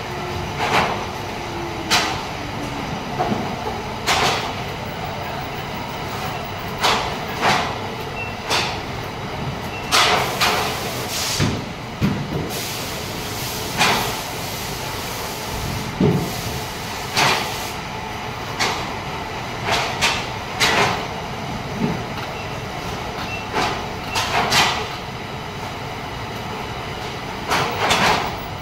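Factory-floor machinery sound: a steady hum broken by short, sharp noisy bursts every one to two seconds, some with a brief echoing tail.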